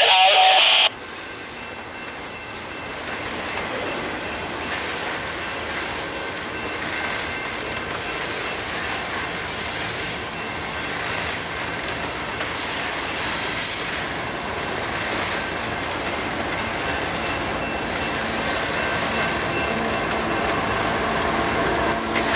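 Loaded double-stack intermodal train rolling past: steel wheels running on the rail, with high-pitched wheel squeal coming and going several times. Near the end the train's rear locomotive, a GE ES44AC diesel, comes by and the sound grows louder.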